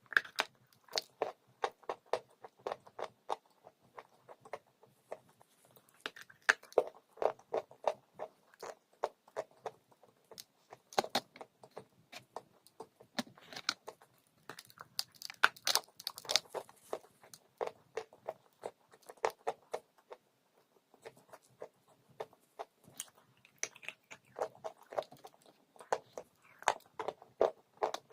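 Close-up biting and chewing of crunchy dry chalk: bursts of rapid, crisp crunches with short pauses between mouthfuls.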